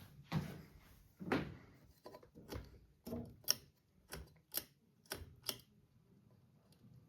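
Pull-chain switch of an Emerson Premium ceiling fan being pulled through its speeds to reach high: a run of about ten sharp clicks and chain knocks over five seconds, then quieter.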